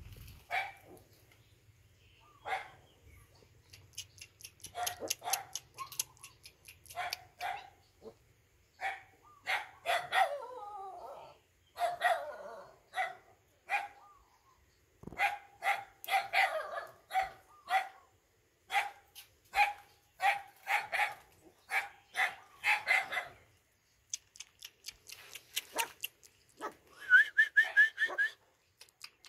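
Puppies yipping and barking over and over in short, high-pitched calls, with a brief series of high chirps near the end.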